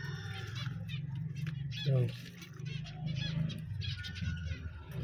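Finches chirping over and over in short high notes, over a steady low hum, with a brief lower call about two seconds in.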